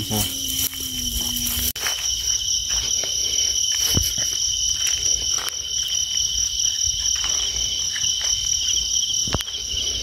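Crickets chirring steadily in a high, fast trill. A low steady hum cuts off suddenly just before two seconds in, and a couple of short knocks come about four seconds in and near the end.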